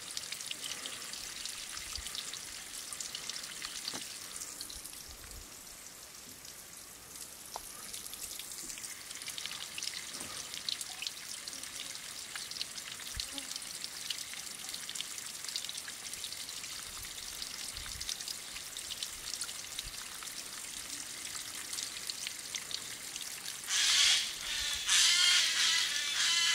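Spring water trickling in thin streams down a mossy rock face and splashing into a small pool, a steady patter of drips and splashes that grows louder near the end.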